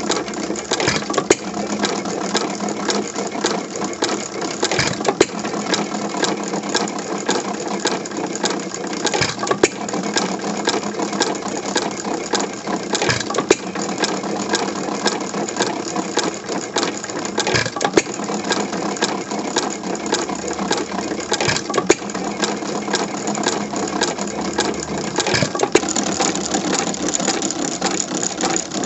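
A c. 1912 Domestic Type A 1½ hp sideshaft stationary engine running, its valve gear and sideshaft making a steady rapid clicking clatter. A louder knock stands out about every four seconds.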